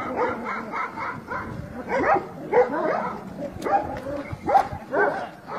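Several Kangal dogs fighting, giving a rapid, overlapping run of short barks and higher-pitched cries.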